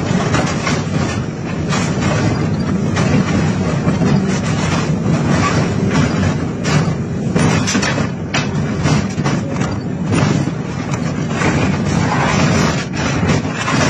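Excavator engine running under load with repeated metal clanks, crunches and tearing as a hydraulic scrap shear bites into and pulls apart a steel trailer frame.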